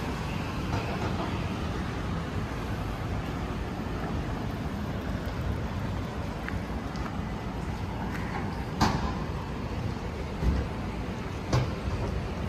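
Steady rumble of street traffic, with a few short sharp clicks in the second half.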